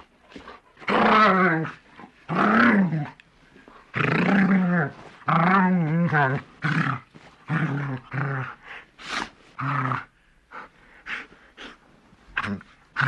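Large dog growling in a series of bursts, each rising and falling in pitch. The longest and loudest growls come in the first half, and shorter ones follow toward the end.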